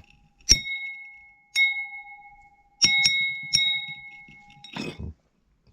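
Wheelock TB-593 alarm bell's gong banged by hand five times, the last three in quick succession. Each strike leaves a clear ringing tone that slowly decays, and the ringing is cut off with a thump near the end.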